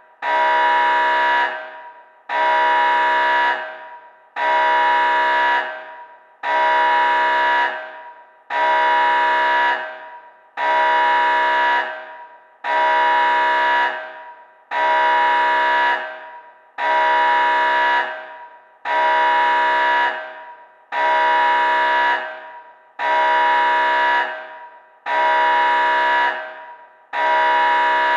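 A loud electronic alarm horn sounding in a regular pattern, about one blast every two seconds, fourteen in all. Each blast starts abruptly, holds about a second, then fades away. A steady high tone runs beneath the blasts.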